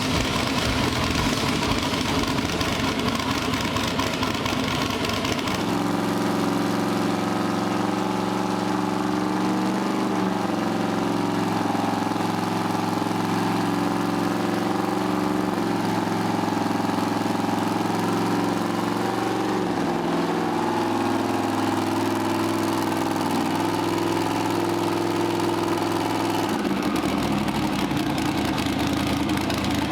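Twin-turbo LS V8 engine running steadily, holding an even pitch for most of the stretch with a couple of small steps in pitch. A rougher, hissier spell is heard at the start and again near the end.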